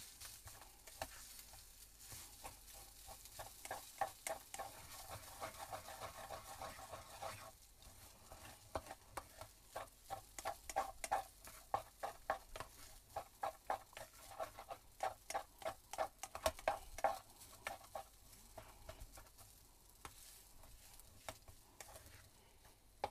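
Plastic spatula stirring and scraping fried rice in an aluminium camping pot in quick repeated strokes, over a faint frying sizzle. The strokes pause briefly twice.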